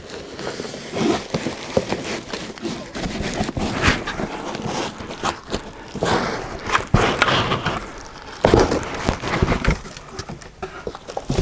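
Cardboard shipping box and a plastic-wrapped bundle rustling, scraping and bumping as the heavy package is worked out of the box, with scattered knocks and a few louder thumps.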